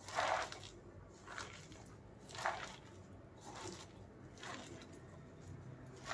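A hand squeezes and kneads chopped spinach leaves with gram flour (besan) in a plastic bowl, mixing a dry pakora mix with no water. It makes faint, irregular squishing and rustling, a soft burst about once a second.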